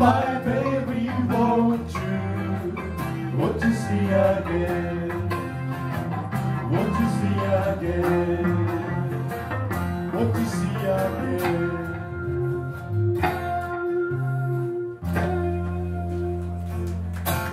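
Live band of acoustic and electric guitars playing, ending the song on a final chord held for the last two seconds or so.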